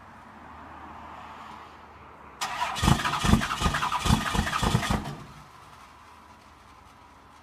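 Cold Cummins 5.9-litre straight-six diesel in a first-generation Dodge Ram pickup, running quietly just after a cold start and blowing white smoke. About a third of the way in it turns loud and rough for about two and a half seconds, with a run of low thumps about three a second, then drops back sharply to the quiet running.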